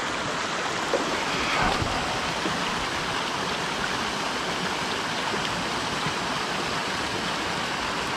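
Steady rushing of a mountain stream, water spilling over a low weir into a pool.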